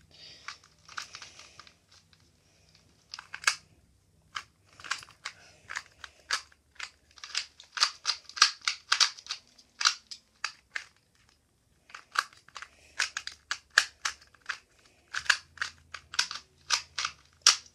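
Plastic 2x2 speed cube being turned rapidly by hand, making quick clicking turns in bursts with short pauses between them.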